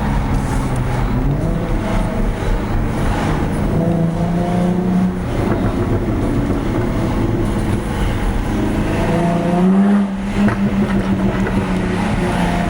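Jaguar F-Type S's supercharged 3.0-litre V6 pulling under acceleration, its note rising through the revs. The revs drop at a shift about five seconds in, then climb again to the loudest point near ten seconds before falling away suddenly.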